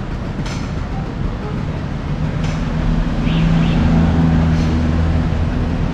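Motor vehicle engine running amid road noise. A deeper, steady engine hum swells in about two seconds in and stays loudest through the middle.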